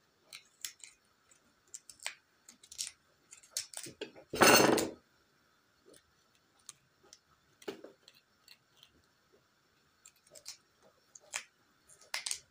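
A kitchen utensil cutting and scraping into a raw black radish, hollowing it out: scattered small clicks and scrapes, with one louder, longer scrape lasting about half a second around four seconds in.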